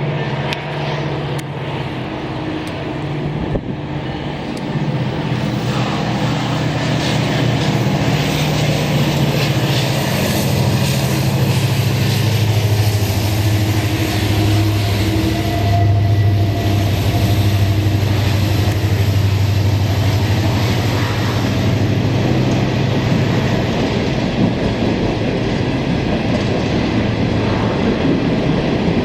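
Norfolk Southern diesel train passing at close range: the locomotives' engines run with a steady low drone over the rumble of wheels on the rails, getting louder over the first several seconds.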